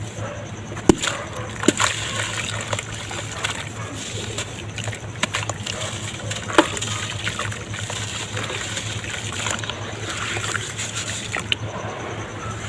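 Red dirt crumbling in water: a steady wet, crackling wash with scattered sharp clicks and small splashes, the sharpest click about a second in.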